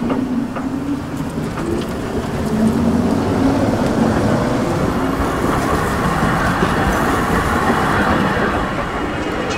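Historic tram set, a motor car with a trailer, passing close by at low speed: steady rumble of the wheels on the rails with a low motor hum. It is loudest midway and eases off near the end as the last car goes by.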